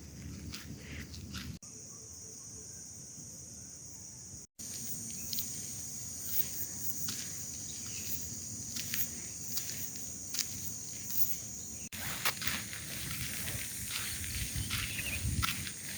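Outdoor ambience with insects chirring steadily in a high band, mixed with scattered light clicks and rustles. It breaks off abruptly and changes several times.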